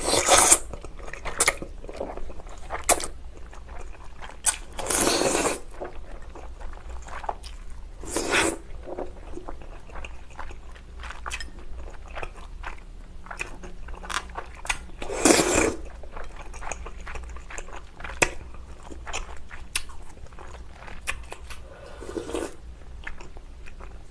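Close-up eating sounds: a person slurping thick Chinese glass noodles and spicy seafood broth in about four loud slurps, at the start, around five seconds, around eight seconds and around fifteen seconds. Wet chewing and lip-smacking clicks fill the gaps between.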